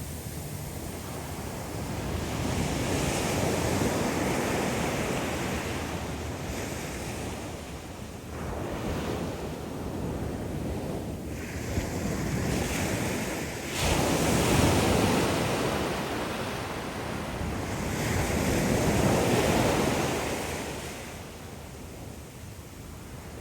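Ocean surf: waves breaking and washing back in several slow surges that rise and fall in loudness, the strongest about a third of the way in and in the last third.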